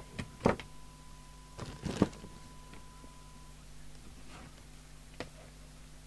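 Steady test tone from an audio oscillator feeding a CB radio's transmit audio, cutting off about three and a half seconds in. Over it come a few sharp clicks and knocks; the loudest are about half a second and two seconds in, and a small one comes near the end.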